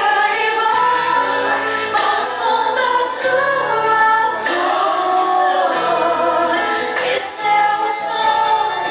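A song with a woman singing the melody over accompaniment, the notes bending and changing as she sings.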